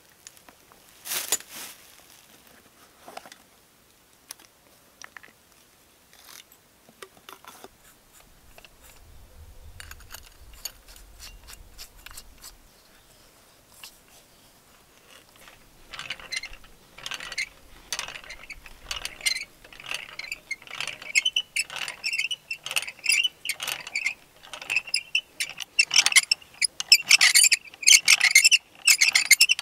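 Hand brace with a long auger bit boring into a log, the bit crunching and scraping through the wood in quick repeated strokes. It grows loud from about halfway in and busiest near the end. Before that come a few scattered clicks and knocks as the tool is handled.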